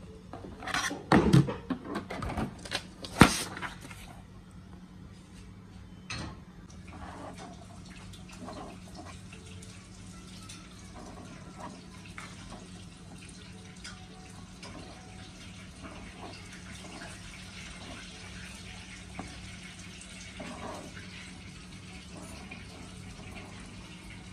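A few loud knocks and clatters in the first few seconds, then a steady hiss like running water with faint light ticks over a low hum.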